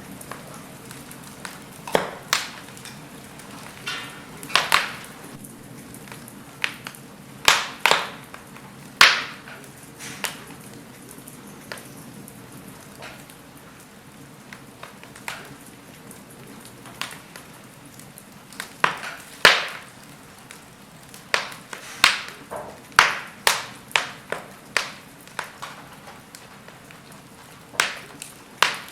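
Wood fire burning in a fireplace: a steady low hiss with irregular sharp crackles and pops from the burning logs, clustering in quick runs at times.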